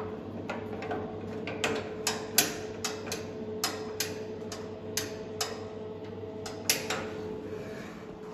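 Sharp metallic clicks from a lift's stainless-steel car door and its track being handled. The clicks come unevenly, one or two a second, with a short pause before the last few, over a steady hum.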